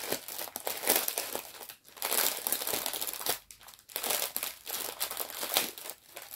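Plastic bag of a diamond painting kit crinkling as it is opened and its contents handled, in uneven spells with two brief pauses.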